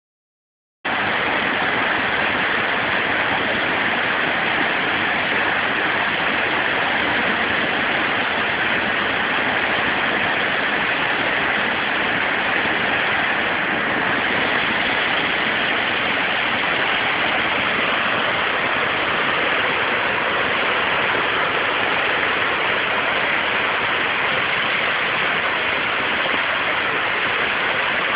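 Waterfall pouring onto rocks, a steady, unbroken rush of falling water that starts about a second in.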